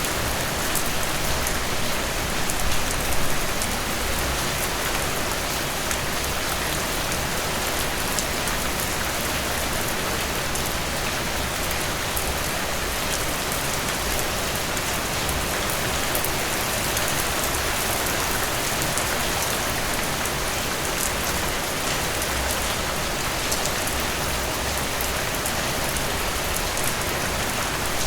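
Steady rain falling on a surface, an even wash of noise with fine drop patter.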